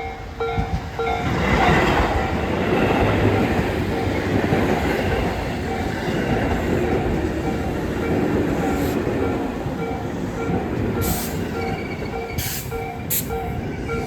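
Tobu 8000 series electric train running into the station. Its wheels and running gear give a heavy rumble from about a second in, with a few short high-pitched sounds near the end. Throughout, a bell-like tone repeats about three times a second.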